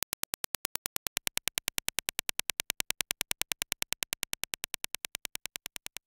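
Dirac impulse test signal for headphone measurement: a rapid, even train of sharp clicks, about ten a second, which grows a little louder about a second in and starts to fade near the end.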